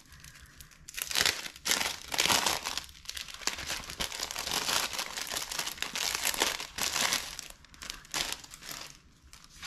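Paper and plastic mail packaging crinkling and tearing as it is handled and opened, starting about a second in and dying away near the end.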